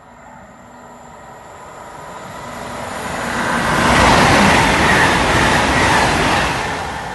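Great Western Railway Hitachi Intercity Express Train passing at speed: the rushing of wheels and air builds over about four seconds, is loudest for a couple of seconds as the train goes by, then begins to fade.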